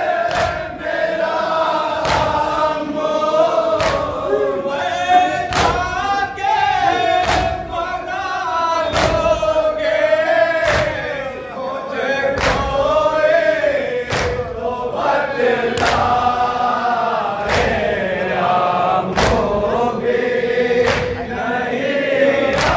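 A nauha (Shia lament) chanted in unison by a group of men, led by a reciter singing into a microphone, over a steady beat of chest-beating slaps (matam).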